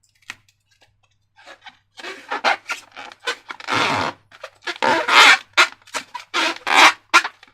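Slime being squeezed and worked by hand: a quick, irregular run of wet squelches and crackles starting about two seconds in.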